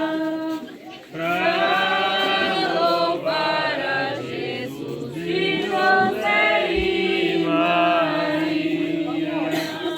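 A group of people singing a simple devotional song to St John the Baptist together, in long held notes, with a short break between lines about a second in.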